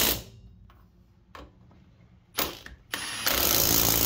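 Cordless impact wrench running lug nuts onto a car wheel's studs in bursts: one cutting off just as it starts, two short ones, then a longer run of about a second and a half near the end.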